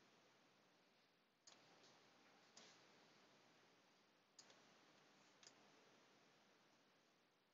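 Near silence: faint room hiss with about five soft clicks, a second or so apart.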